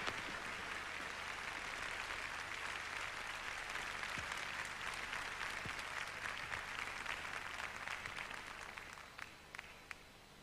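Audience applauding, the sound dying away over the last two seconds to a few final claps.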